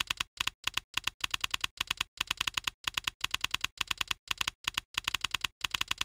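Typing sound effect: rapid key clicks in bursts of several strokes, with short pauses between the bursts.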